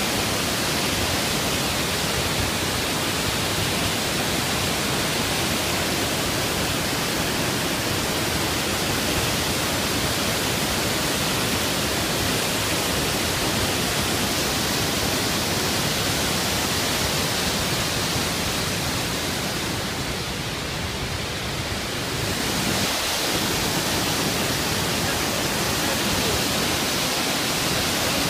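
Waterfall: a steady rush of falling water, briefly fainter and duller about twenty seconds in.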